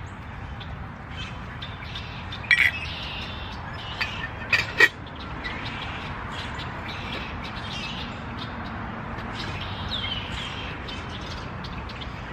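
Birds chirping over a steady background hiss, with a few sharp clicks about two and a half and four and a half seconds in.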